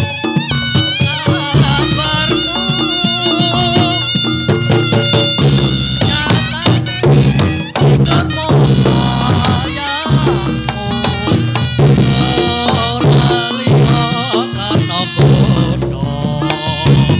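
Reog Ponorogo gamelan accompaniment for a jathilan dance: a reedy slompret shawm plays a wavering, ornamented melody over a steady beat of drums and gongs.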